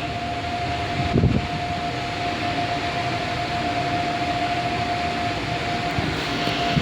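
IFE passenger lift travelling up, heard from inside the car: a steady hum and fan-like rush with a constant whine. There is a brief knock about a second in.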